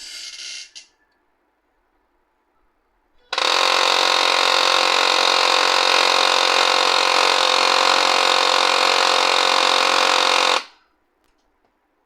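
HP LaserJet M1005 MFP laser printer humming loudly while it initializes, a steady buzzing hum that starts suddenly and stops about seven seconds later: the fault humming, which the repairer puts down to the drive motor and later to a jammed lock at the back of the printer. A short hiss comes right at the start.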